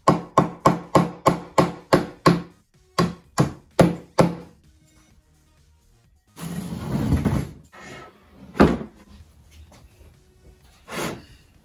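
Claw hammer driving nails through a thin plywood back panel into a pine frame: a quick run of about ten strikes, a short pause, then four more. After that the wooden rack is turned over, a longer scraping rumble followed by a single knock.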